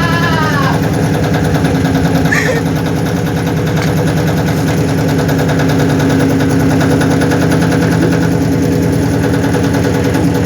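Washing machine shaking hard in its spin cycle: a steady motor hum under a fast, continuous rattling.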